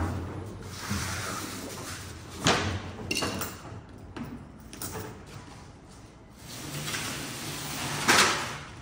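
Paint buckets and cardboard sheets being handled on a tiled floor: scattered scrapes and knocks, the loudest about two and a half seconds in and a longer scrape near the end.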